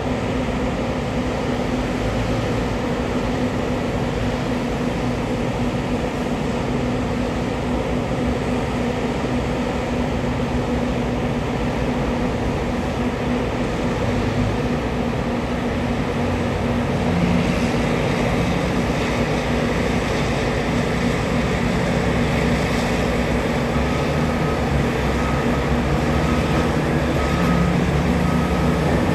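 Heavy mining machinery at work: the large diesel engines of a hydraulic mining excavator and haul truck running steadily under load. The sound gets brighter and a little louder about halfway through, and a faint beep repeats in the last few seconds.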